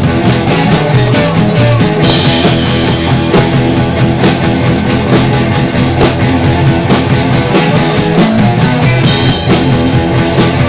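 Rock band playing loud, live in the room: drum kit and guitar, with a crash cymbal ringing out about two seconds in and again near nine seconds.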